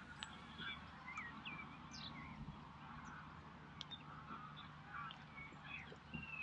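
Waterfowl calling faintly on the water: scattered short honks and chirps, one after another, over a low steady hum.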